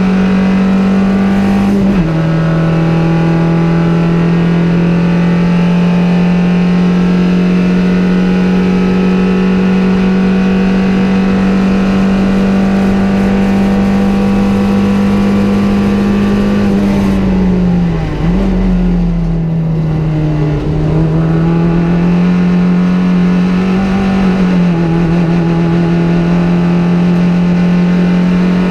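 Peugeot 205 GTI race car's four-cylinder petrol engine heard from inside the stripped cabin under hard acceleration. The revs drop sharply at an upshift about two seconds in, then climb slowly for a long stretch. They fall as the car slows around eighteen to twenty seconds in, pick up again, and drop at another upshift near twenty-five seconds before climbing once more.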